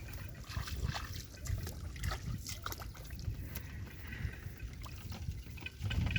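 Shallow water sloshing and splashing in small, irregular splashes over a steady low rumble.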